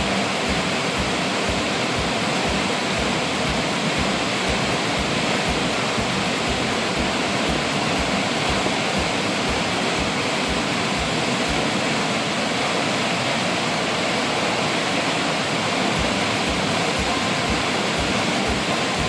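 Swollen, muddy floodwater rushing and churning over rocks: a steady, loud rush of whitewater.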